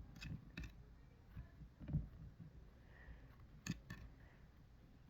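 Faint handling sounds of slime and small objects being worked by hand: a few sharp clicks, a soft knock about two seconds in, and two quick clicks past the middle.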